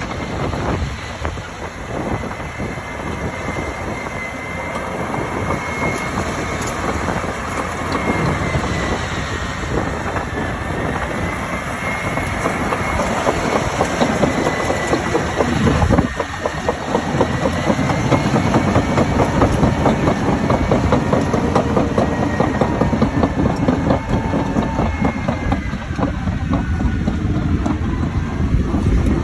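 Bulldozer's diesel engine running under load, with continuous clanking of its steel tracks and a faint high whine that slowly wavers in pitch.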